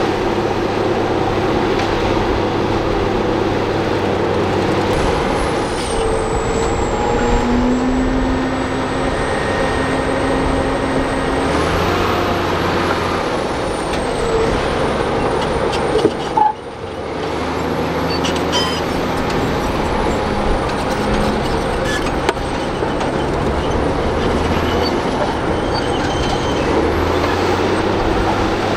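Crawler bulldozer's diesel engine running steadily as it pushes dirt and rock. A thin high whine rises and falls over it, and the sound drops out briefly about halfway through.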